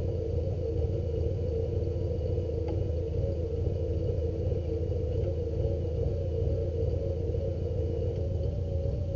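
An engine running steadily, with a low rumble and a hum that wavers slightly in pitch.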